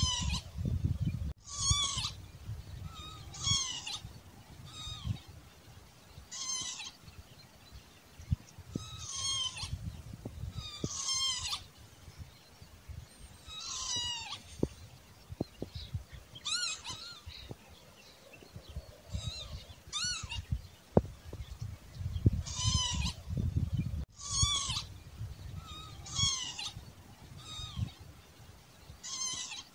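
Northern lapwing calling over and over, its wheezy, slurred 'pee-wit' repeated about every one to two seconds, over a low uneven rumble.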